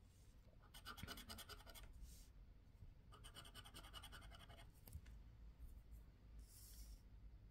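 Faint scratching on a scratch-off lottery card, the latex coating rubbed away in two bursts of rapid strokes, about ten a second: one about a second in and a longer one from about three seconds in.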